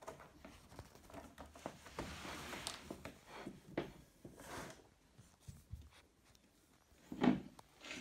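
Faint rustling and light knocks of a cat moving in and out of a box and walking on a wooden floor, with a brief louder sound a little after seven seconds.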